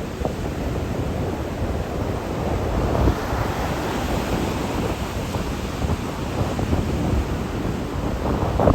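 Gale-force wind buffeting the microphone in heavy, uneven gusts, with sea surf breaking beneath it.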